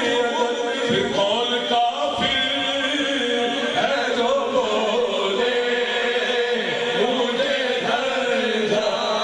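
A man's voice singing a Punjabi devotional kalam into a microphone, in long held notes that slide up and down.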